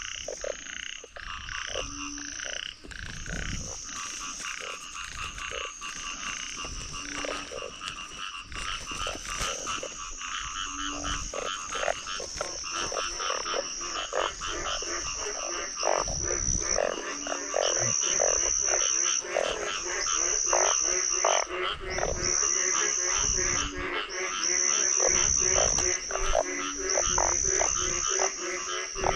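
Breeding chorus of many frogs after heavy rain, balloon frogs among them. Overlapping croaks sound over a high call that repeats every second or two, and the chorus grows louder about halfway through.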